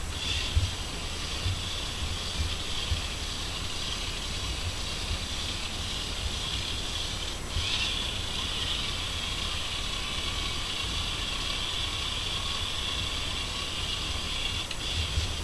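Small electric motor of a LEGO Boost train running steadily as the train rolls along plastic track, with irregular soft knocks from the wheels. The motor sound breaks briefly about halfway through.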